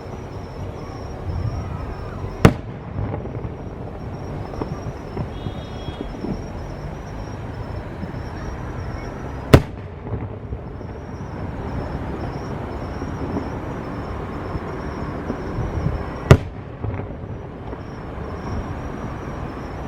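Three single loud, sharp firework shell bursts, about seven seconds apart, over steady outdoor background noise.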